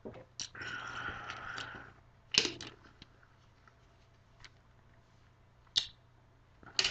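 A sip from a plastic shaker cup: a slurp lasting about a second, followed by a few sharp clicks or knocks.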